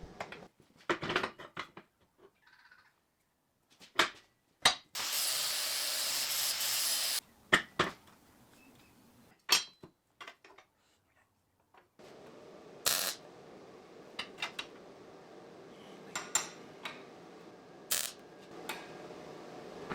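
Sharp metallic clinks and knocks of metal parts and tools being handled, with a steady hiss lasting about two seconds about five seconds in.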